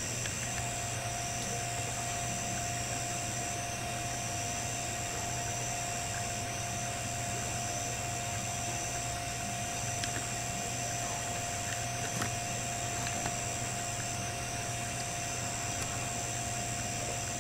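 Steady hum and hiss with a low drone, a steady mid tone and a high thin tone that drops out briefly about every second and a half, plus a few faint ticks.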